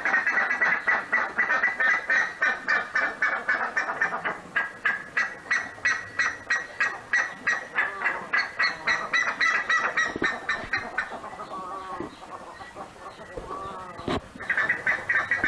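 Buff-necked ibises (curicaca) giving their loud, metallic honking calls in a fast run of short repeated notes. The calls ease off about two-thirds of the way through, leaving a few softer calls, then start up again near the end.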